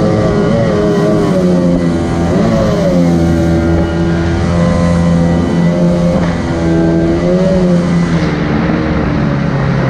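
Jet-drive outboard motor on a jon boat running at speed, its pitch rising and falling briefly a few times as the throttle and load change.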